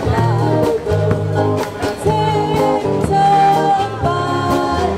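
A small live band plays an upbeat pop song through a PA, with electric guitar and a steady bass line under a woman's amplified singing.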